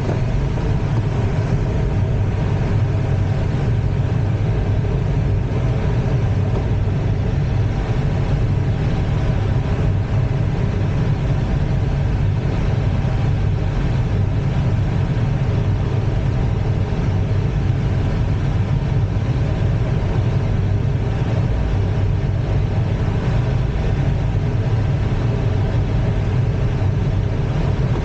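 Steady airflow noise in the cockpit of an ASK-21 glider in engineless free flight: a constant low rumble that holds level throughout.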